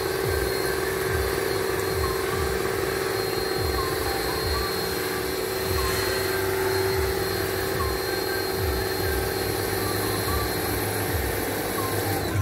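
Motor-driven water pump running steadily, feeding the hose used to wash out the tanks: a constant hum with a regular low throb.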